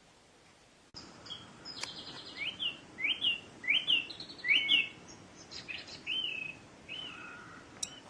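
Recorded birdsong played as the wake-up sound of a Philips HF3519/01 wake-up light: a run of short, rising chirps that starts abruptly about a second in. A sharp click comes soon after the start and another near the end.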